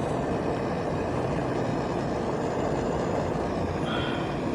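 Steady rushing noise of a 2017 GMC Terrain running with its newly replaced HVAC blower motor on, with a brief faint high squeak about four seconds in.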